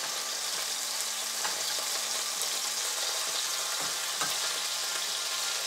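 Peeled shrimp sizzling steadily in hot oil in a wok over high heat, with a few light clicks of metal tongs as they are turned over.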